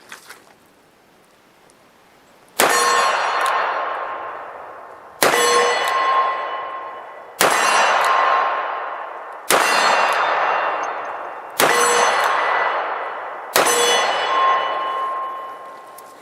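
Six shots from a Smith & Wesson Model 610 10mm revolver, a full cylinder, fired about two seconds apart, each hit making a steel target clang and ring out, dying away over about two seconds.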